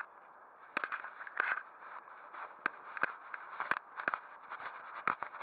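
Handling noise from the camera being moved and repositioned: a sharp click at the start, then irregular scraping and knocking close to the microphone from about a second in.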